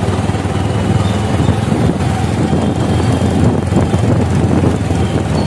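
Motorcycle engine running steadily at speed, with wind buffeting the microphone.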